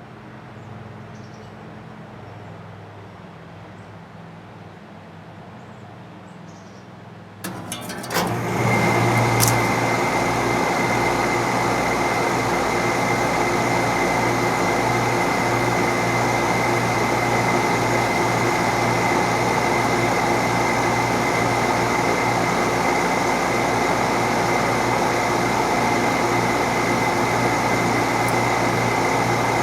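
A 1982 York heat pump starting up in heating mode: a few clicks about seven seconds in, then the unit comes on at once and runs steadily with a low hum, a rushing fan noise and a thin high whine.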